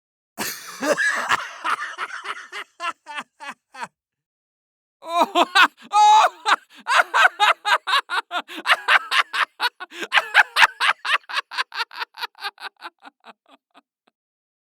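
Two laughter sound effects one after the other: a short burst of laughing, then after a brief pause a long rhythmic 'ha-ha-ha' laugh, about three pulses a second, that fades away near the end.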